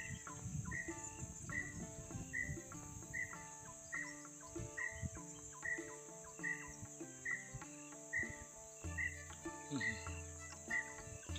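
Steady high-pitched drone of insects over soft background music with a regular beat and changing held notes. A low rumble comes in about nine seconds in.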